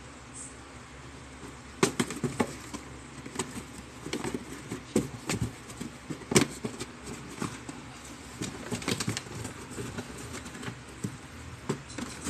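Cats batting and scratching at a cardboard box: irregular sharp taps and scuffs of paws on the cardboard, starting about two seconds in, with the loudest knock about halfway through.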